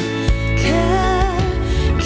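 A woman singing held notes with wide vibrato over a band accompaniment with steady bass and a few drum hits.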